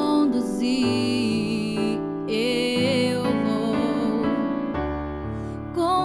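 Woman singing a slow Christian worship song in long held notes with vibrato, over sustained electric piano chords.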